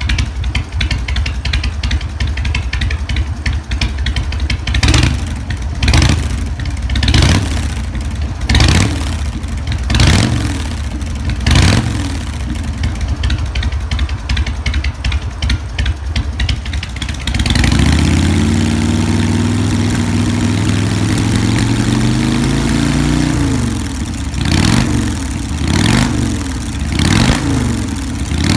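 Harley-Davidson Sportster V-twin running through drag pipes fitted with an inner silencer (exhaust baffle). It idles with about six quick throttle blips, then is revved and held for about six seconds, rising then falling, then blipped a few more times.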